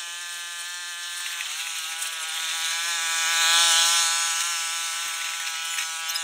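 Electric power-tool motor running steadily with a high whine. Its pitch dips briefly about a second and a half in, and a hiss swells up near the middle.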